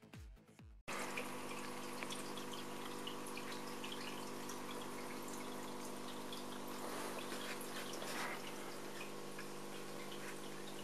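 Fish tank water trickling and dripping, with small splashy ticks over a steady electrical hum. It follows the end of electronic music, which cuts off suddenly about a second in.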